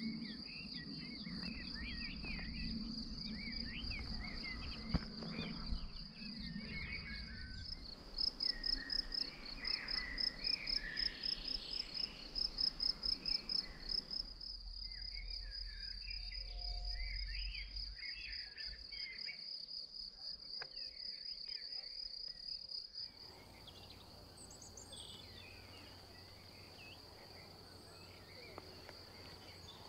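Insect chirping: one high, steady trill that breaks into quick pulsed chirps, about three a second, for several seconds in the middle. Scattered bird calls sound beneath it.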